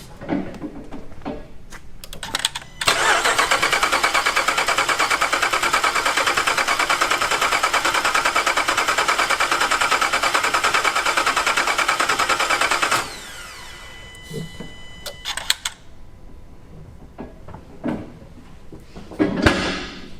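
Supercharged 6.2-litre Hellcat V8 cranked on the starter for about ten seconds with the ignition coils unplugged, turning over in an even rhythmic pulse without firing to prime oil to the rebuilt top end. It stops abruptly, followed by a few clicks and a thump near the end.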